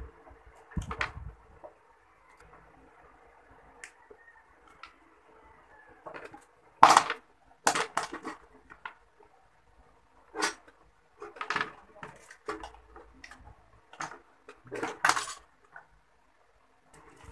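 Scattered clicks and clinks of metal hand tools and stiff wire being handled around a circuit breaker and its steel enclosure. The loudest click comes about seven seconds in.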